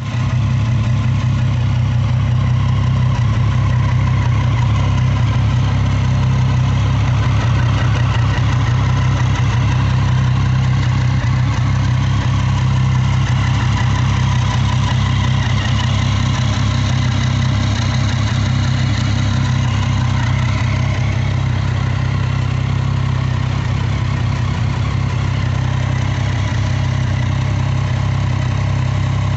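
Triumph Street Triple 675 R's three-cylinder engine idling steadily.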